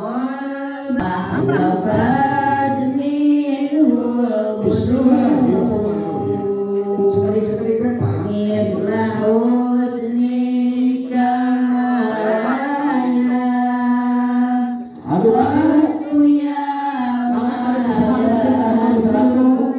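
Sundanese kacapi suling music: a sinden (female singer) sings a slow melody in long held notes, accompanied by kacapi zither and suling bamboo flute.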